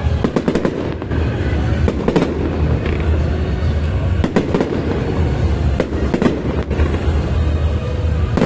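Fireworks going off: a string of sharp bangs and crackles every second or so, over a steady low rumble.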